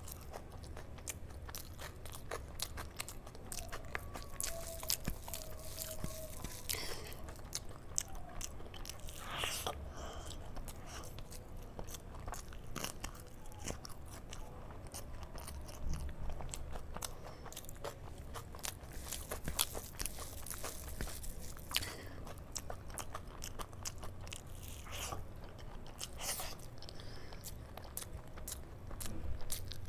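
Close-miked eating: a person chewing mouthfuls of rice and kadhi with crunchy bites of raw salad, many sharp mouth clicks and crunches following one another.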